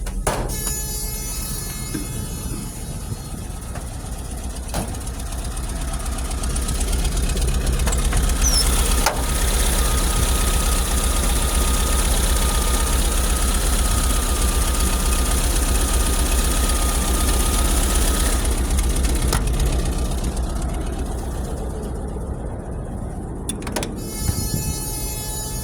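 1978 VW Bus's original 2.0-liter fuel-injected, air-cooled Type 4 flat-four idling steadily. It grows louder about a quarter of the way in, with a thin steady whine over it through the middle, then eases off again near the end.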